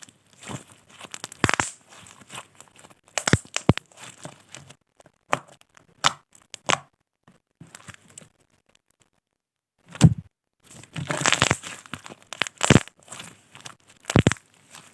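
Homemade slime with small coloured beads mixed in, squished and pressed by hand for ASMR, making irregular sticky pops, crackles and crunches. The sounds stop for about two seconds past the middle and return with one sharp pop.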